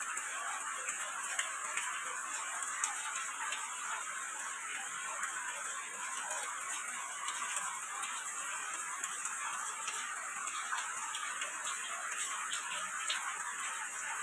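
Steady rain falling, with many small individual drops ticking sharply through the hiss.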